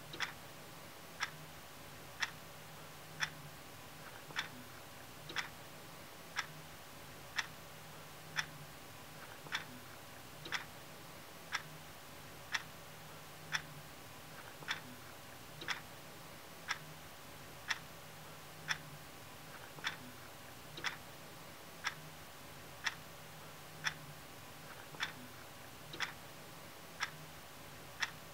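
Clock ticking, one sharp tick about every second, steady and even, over a faint low hum.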